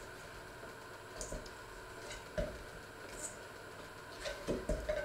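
Dough being kneaded by hand in a stainless steel mixing bowl: soft squishing with irregular dull knocks of the dough and hands against the bowl, several in quick succession near the end.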